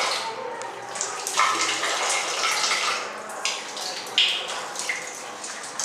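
Water running from a wall tap and splashing over a baby's hand onto a tiled floor, steady, with a few brief louder splashes.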